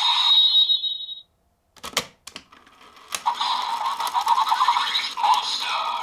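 Electronic sound effects from the speaker of a DX Desire Driver toy belt with the Monster and Ninja Raise Buckles. The transformation sound cuts off about a second in, a few plastic clicks follow as the buckle is worked, and about three seconds in the belt starts its "Monster Ninja Victory" finishing-attack sound effects and music.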